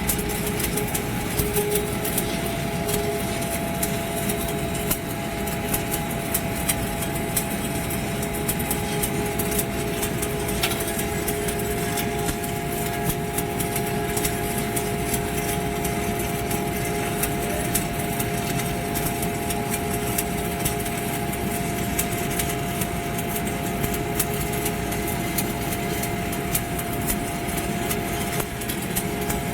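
A machine running steadily with a constant hum of two steady tones, under dense, continuous crackling.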